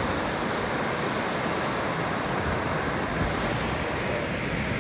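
Fast mountain river running through whitewater rapids: a steady rushing of water.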